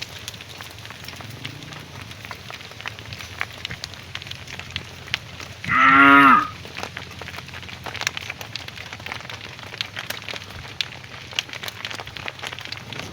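A cow moos once, a short call about six seconds in, over a steady background of light crackling and clicking.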